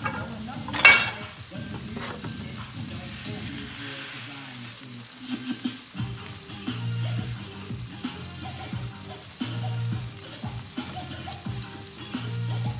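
Skillet of sautéed corn, spinach, peppers and onion sizzling on a switched-off electric burner, with a single sharp clack about a second in. Background music with a low, repeating beat comes in about halfway.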